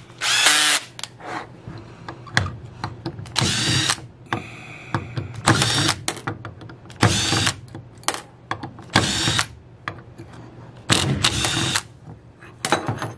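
Cordless drill-driver backing out the small screws of an end plate on an automatic-transmission valve body, running in about eight short spurts with pauses between.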